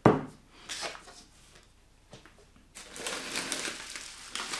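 A small tube set down on a table with a sharp knock, then after a short lull the crinkling and rustling of a snack bag's packaging as it is lifted out of a box and handled.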